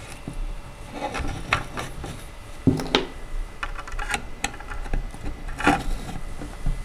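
Wooden chair parts knocking and rubbing together as a seat panel and screw are fitted by hand: a series of irregular light taps and clicks.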